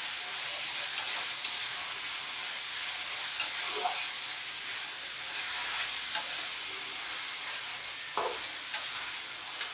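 Chopped onions with a little salt sizzling in hot oil in a pan, stirred now and then with short scraping clicks, as they cook down toward brown.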